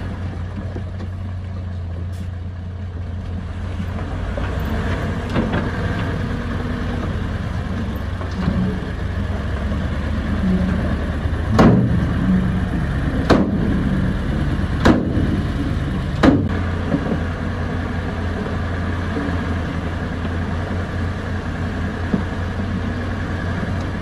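Earthmoving machine's engine running steadily, with four sharp knocks about a second and a half apart midway through.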